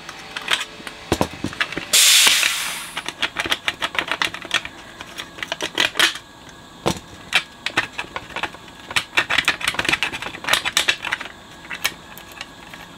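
Irregular small clicks, taps and rattles of a metal radio chassis, its circuit board and wiring being handled and pulled about on a workbench, with a short hiss about two seconds in that fades away.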